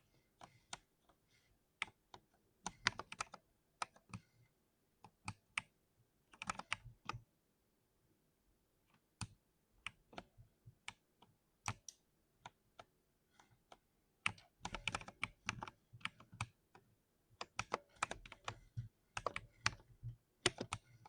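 Typing on an oiled 60% mechanical keyboard. Irregular keystrokes, single presses spaced apart mixed with quick runs of several keys.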